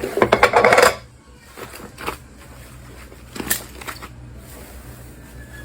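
Slime being squeezed and poked by hand, trapped air popping out: a quick run of sharp clicking pops in the first second, then a few single pops.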